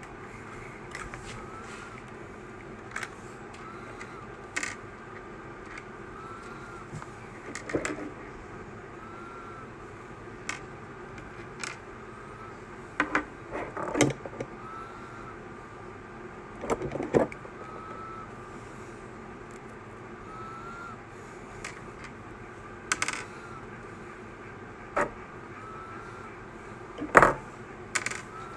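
Scattered clicks and knocks of hand tools and small parts being handled while working on an RC truck's shocks, over a steady low hum. A faint short chirp repeats about every two seconds throughout.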